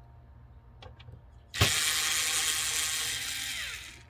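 Power screwdriver running to back out a screw from the amplifier's steel bottom plate. It starts suddenly about a second and a half in, runs steadily for about two seconds, and winds down with a falling whine near the end.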